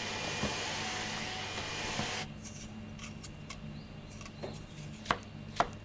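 Steady hiss that cuts off about two seconds in, followed by a few faint ticks and then two sharp kitchen-knife chops on a cutting board near the end.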